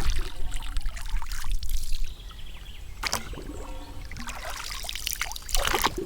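Water splashing and trickling in irregular bursts, louder for the first two seconds, with a sharper splash about three seconds in and another near the end.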